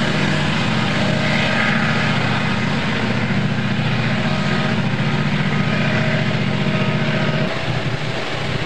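Diesel locomotive engines running with a steady low throb. The low drone eases about seven and a half seconds in.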